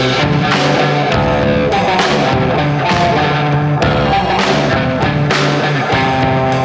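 Background music with guitar over a steady beat.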